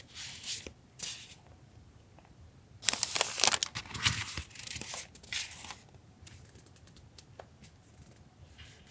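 Sheets of paper lettering stickers handled close up: short rustles, then a louder stretch of dense crinkling and crackling about three seconds in, lasting around a second and a half, followed by a few light taps.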